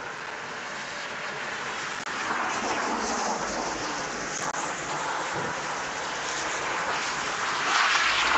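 Steady hiss of tyres on a wet road, with rain-like noise, swelling louder near the end as cars come round the bend.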